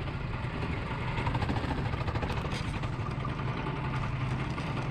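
Kart engines running steadily, a continuous low engine hum.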